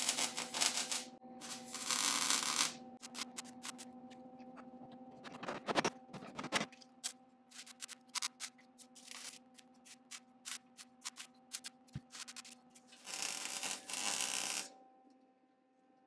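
MIG welder crackling in short bursts as plug welds are laid into a sheet-steel brace, with many quick clicks and blips between the longer bursts; the longest burst comes near the end. A faint steady hum runs underneath.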